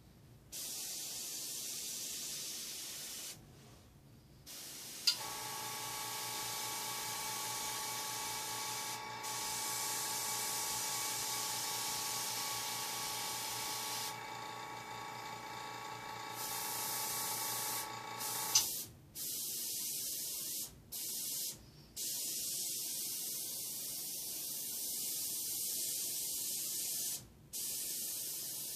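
Airbrush spraying paint with a high hiss of air, cut by short breaks each time the trigger is let go. Between about five and nineteen seconds in, a steady pitched hum from the air compressor runs underneath, starting and stopping with a click.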